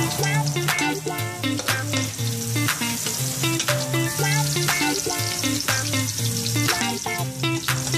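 Food sizzling in a hot pan while being stirred, with scattered scraping clicks, over background music with held notes and a bass line.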